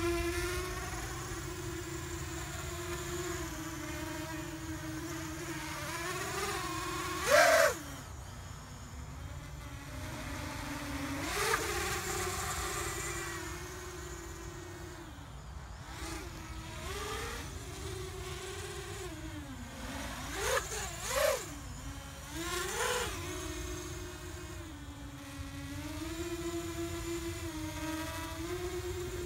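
Small quadcopter's electric motors and propellers whining in flight. The pitch holds fairly steady, then jumps up and back down with several short throttle bursts; the loudest is about seven seconds in, with smaller ones later.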